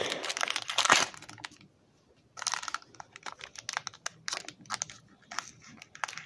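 Foil trading-card booster pack wrapper being torn open and crumpled by hand, in short, irregular crackles, with a brief pause about two seconds in.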